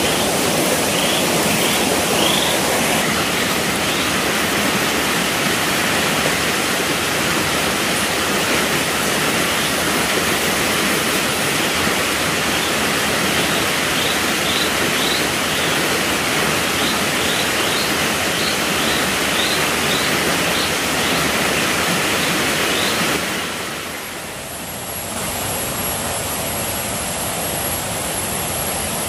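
Shallow stream running over rocks: a steady rushing of water, with short high chirps now and then. Near the end the rushing drops away, leaving a quieter background with a steady high thin whine.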